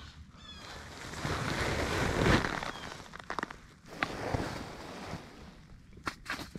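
A gust of wind buffeting the microphone: a rushing noise that swells for about a second and a half and then fades, followed by a few light clicks.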